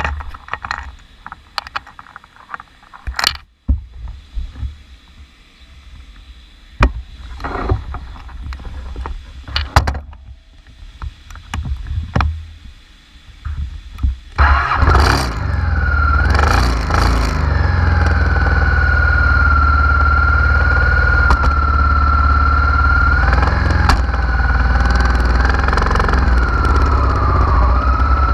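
Honda Africa Twin RD04's V-twin engine starting about halfway through, after scattered clicks and knocks, then idling steadily with a slightly wavering whine above the exhaust note.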